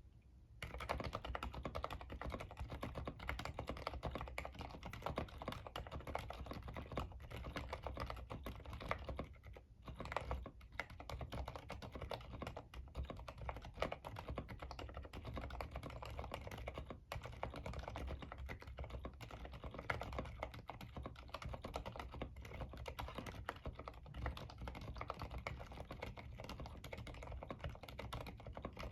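Continuous fast typing on a Cidoo Nebula mechanical keyboard with Gateron Aliaz silent tactile switches and OEM-profile keycaps, a dense run of keystrokes with brief pauses about nine and a half and seventeen seconds in.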